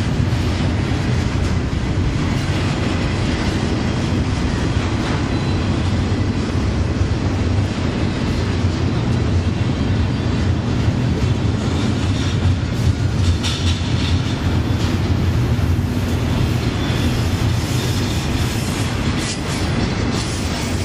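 Double-stack container well cars of a long intermodal freight train rolling past: a steady, loud rumble and clatter of steel wheels on the rails.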